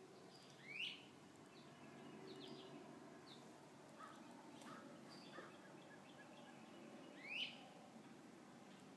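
Wild birds calling: two loud sweeping calls, about a second in and again near the end, with fainter short chirps between them over quiet outdoor ambience.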